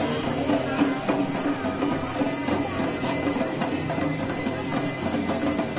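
Hindu evening aarti: hand bells ringing steadily together with devotional music, a dense mix of bells, pitched voices or instruments and light percussion.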